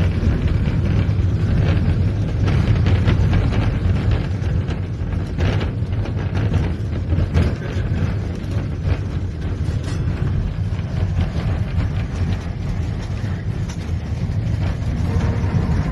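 Wooden heritage tram car running along its track, heard from inside the car: a steady low rumble of wheels and running gear, with scattered clicks and rattles.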